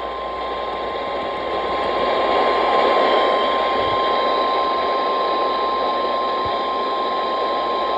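NOAA Weather Radio warning alarm tone, a single steady tone near 1050 Hz, sounding over loud radio static and hiss. It signals that a warning broadcast is about to follow.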